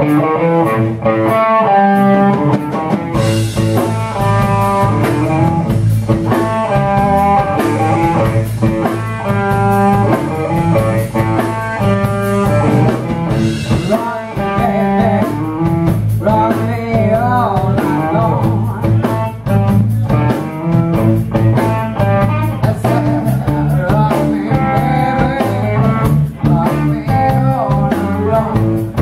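Live blues/rock'n'roll band playing: a woman sings into a microphone over electric guitar and a drum kit.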